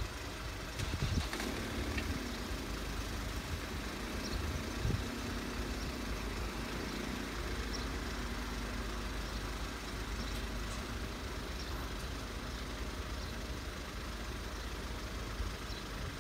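Steady low rumble of road vehicles idling, held at a closed level crossing.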